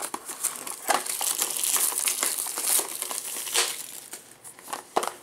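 Plastic shrink-wrap being torn and crumpled off a cardboard trading card box: dense crinkling with many small crackles, easing off near the end.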